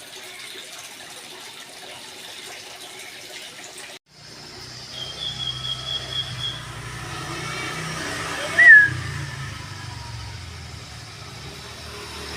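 A steady low hiss, then after a sudden cut a low engine rumble with a thin high whistled note and, about nine seconds in, one short loud falling chirp from a bird.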